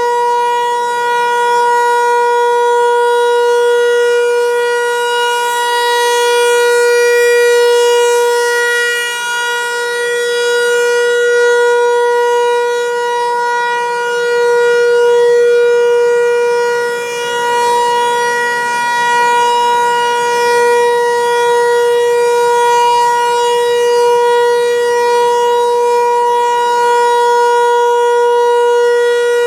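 Federal Signal 508-128 outdoor warning siren sounding one steady, held tone during a test. Its loudness swells and fades every seven to eight seconds.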